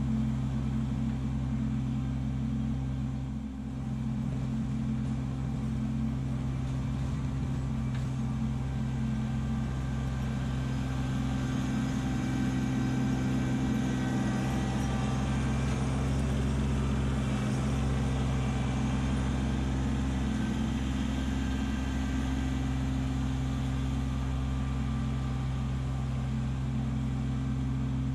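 Kubota LX2610 compact tractor's three-cylinder diesel engine running steadily while clearing snow with its snowblower, a constant low drone that dips briefly about three and a half seconds in.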